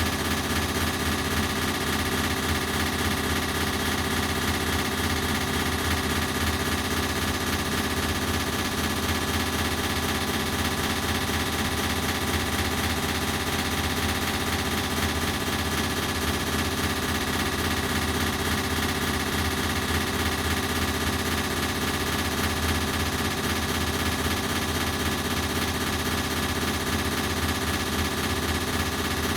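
Ceiling fan running, its sound put through an artificial echo effect: a steady, dense drone with a fast, fluttering pulse.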